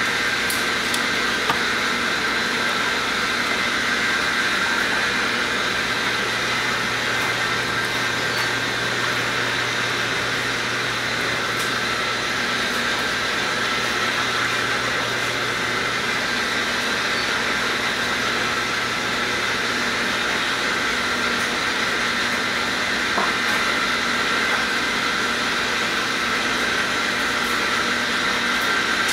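Steady machine whir and hum with a few fixed whining tones and a low drone, unchanging in level.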